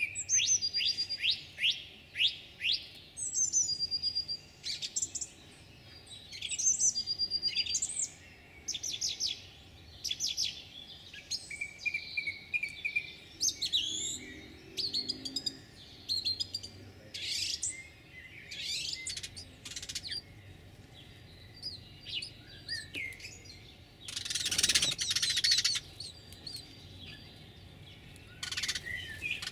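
Small songbirds singing and calling: quick high chirps and short whistled phrases following one another. About three-quarters of the way through comes a louder rush of noise lasting about two seconds.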